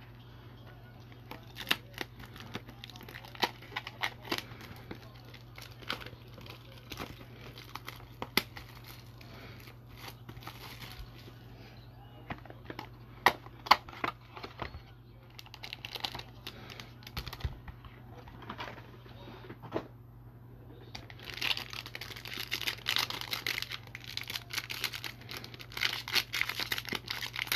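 Cardboard box and plastic wrapping being opened and handled, with scattered ticks and rustles; about three-quarters of the way through, a foil trading-card pack starts crinkling steadily as it is handled. A low steady hum runs underneath.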